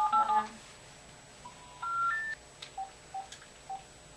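Cordless telephone keypad tones as the last digits of a number are dialled, loudest in the first half second. About a second and a half in, three short tones step upward in pitch, like the telephone network's intercept signal for a number that cannot be reached, followed by a few short faint beeps.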